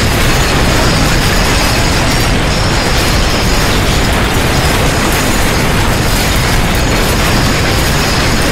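Strong earthquake shaking: a loud, unbroken rumbling noise with no pauses.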